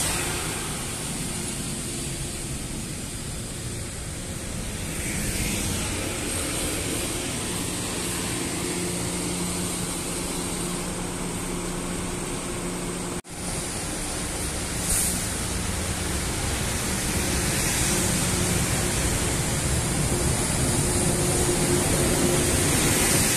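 Long Island Rail Road M3 electric multiple-unit train standing at a platform, its onboard equipment humming steadily under a faint high whine. The sound breaks off sharply for an instant about 13 seconds in and then grows slightly louder toward the end.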